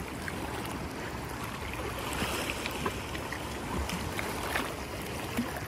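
Shallow sea water lapping and washing at the shoreline, a steady wash with a few small splashes.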